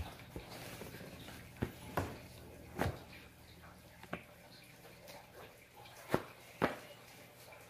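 Running shoes being handled and set down on a wooden floor: about seven separate soft knocks and scuffs, the two sharpest near the end, over a faint steady low hum.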